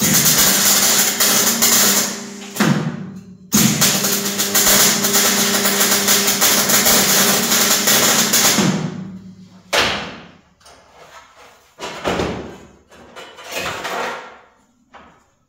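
Handheld electric power tool working sheet metal, with a steady motor hum under harsh cutting noise. It runs twice, briefly and then for about five seconds, and is followed by a few shorter, quieter bursts.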